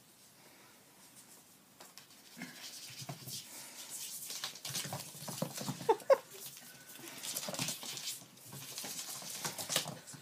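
Kitten scampering and scrabbling on a hardwood floor as it chases a toy: quick, irregular patter and scuffles of paws and claws that start after about two quiet seconds, with a couple of brief pitched sounds around the middle.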